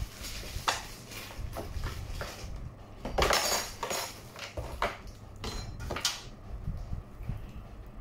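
Intermittent clicks, light clinks and rustling from hands handling PC-build hardware, with a longer, louder rustle about three seconds in.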